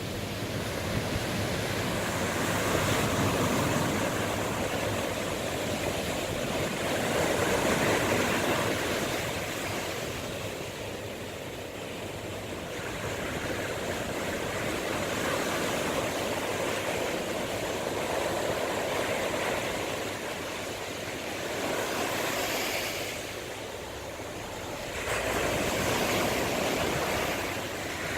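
Sea surf breaking and washing on the shore, the rush of water swelling and ebbing every several seconds.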